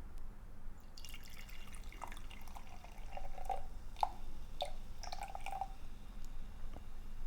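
Mango-flavored Mountain Dew Baja soda poured into a glass: a fizzing hiss that starts about a second in, with scattered drips and splashes.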